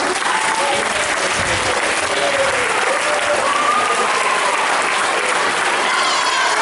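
Audience applauding and cheering, with voices calling out over the clapping.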